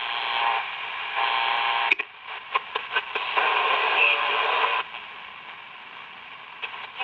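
Candle pocket transistor radio being tuned across the AM band between stations: static hiss with a run of sharp crackling clicks about two to three seconds in. The hiss drops quieter for the last couple of seconds.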